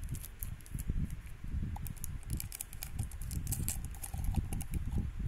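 Hands handling toy packaging close to the microphone: a crinkly wrapper or label crackling in scattered small clicks, over soft, irregular bumps and knocks.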